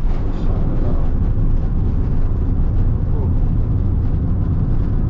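Steady low rumble of a car driving along an open road, engine and tyre noise heard from inside the cabin.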